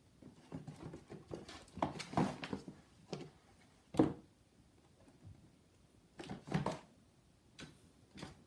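Kittens scrabbling on and bumping a cardboard shoe box, with irregular cardboard knocks and scrapes as the box shifts on the floor. A sharper knock about four seconds in is the loudest.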